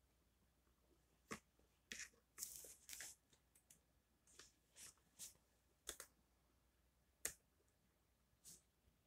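Faint handling noise: about a dozen light scattered clicks and a short rustle of clothing about two and a half seconds in.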